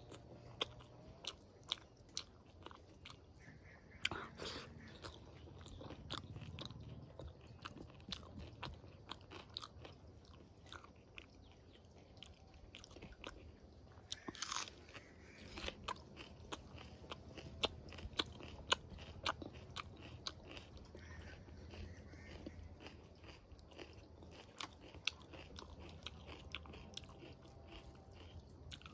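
A person chewing mouthfuls of rice and vegetable curry eaten by hand, close to the microphone: steady chewing with many small mouth clicks, a few of them louder.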